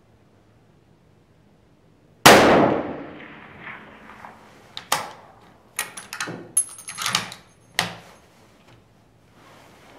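One loud rifle shot from a Remington 700 in 9.3x62, about two seconds in, fading away in a long echo. A few seconds later the bolt is worked in a run of sharp metallic clicks, and the ejected brass case clinks and rings on the concrete.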